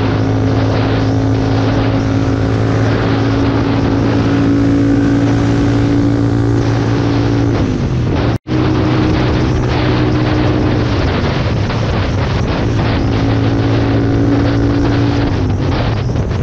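Motorcycle engine running at highway speed under heavy wind noise on the microphone. The engine note falls several times as the throttle eases and rises again in between. The sound cuts out for an instant just past the middle.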